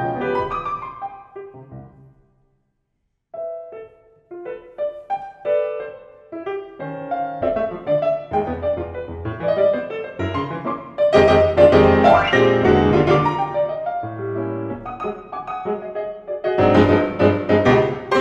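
Grand piano played four hands by two pianists: a phrase dies away into a pause of about a second, then single quiet notes resume and build into full, loud chords.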